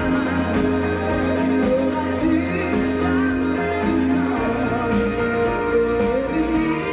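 Live pop band with electric guitars, drums and keyboards playing a song with a steady beat while singers sing into microphones.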